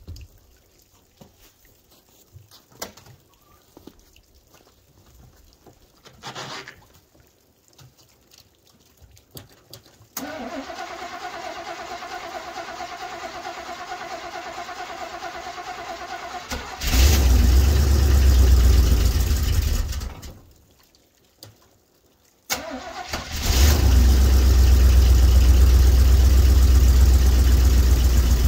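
Cold start of a 1986 Chevy G30 motorhome: after faint clicks and knocks, the starter whirs for several seconds until the engine fires and runs for a few seconds. It dies, then restarts after a brief crank and settles into a steady run.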